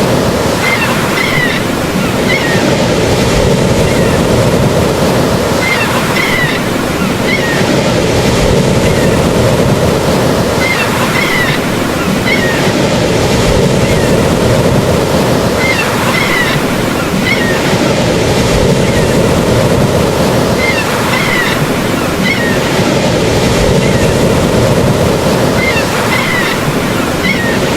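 Steady rushing noise of ocean surf, even and unbroken, with faint high chirps in small groups recurring about every five seconds.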